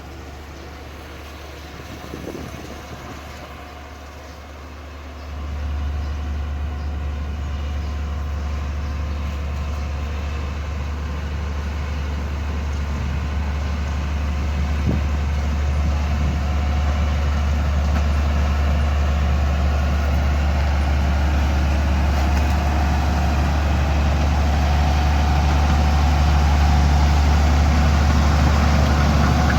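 Heavy construction machine engine running with a steady low hum. It jumps louder about five seconds in, then grows slowly louder.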